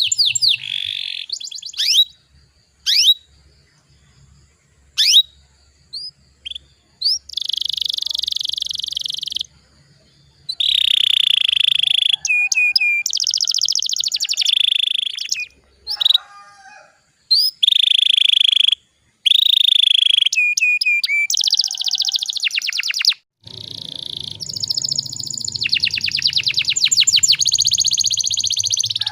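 Domestic canary singing in phrases: a few single sweeping chirps, then long rapid trills and rolls, broken by short pauses. A low rumble runs under the song near the end.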